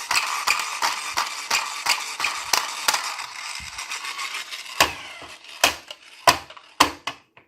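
Small plastic toys being handled and rummaged through: a rapid rattle of clicks over rustling, thinning out after about four and a half seconds into a handful of separate, louder clicks and knocks.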